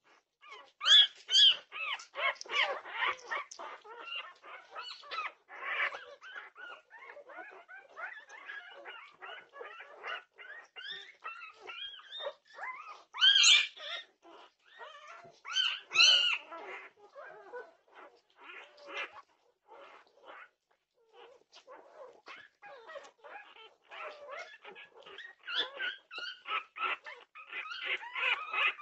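A litter of young Norwegian Buhund puppies crying: many short, high-pitched calls overlapping almost without pause, with a few louder cries near the start and twice around the middle.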